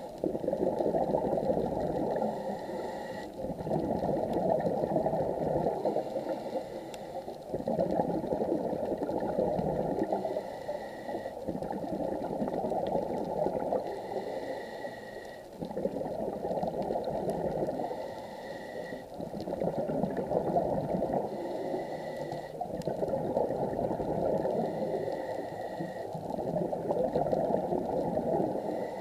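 Scuba diver breathing underwater through a regulator, heard muffled: gurgling bubble noise swells and eases in a slow cycle every three to four seconds.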